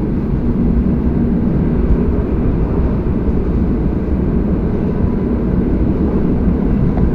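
ED4M electric multiple unit running along the line at speed: a steady, loud rumble of wheels on rail and running gear.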